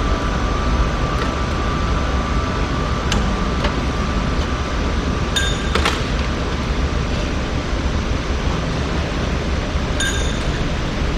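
A steady low mechanical rumble, with a few short ringing metallic clinks: one about a third of the way in, a pair near the middle and one near the end.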